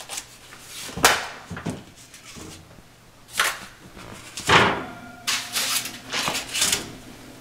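An oven door opened and foil-wrapped potatoes set onto the metal oven rack: a few sharp clunks and knocks, the loudest about halfway through, then a stretch of rustling and clattering.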